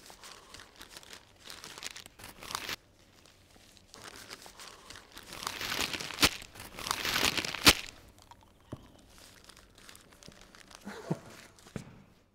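Paper crinkling and rustling as a sheet of printed paper is handled and folded into a bundle. It pauses about three seconds in, and is loudest around six to eight seconds in, with a couple of sharp crackles.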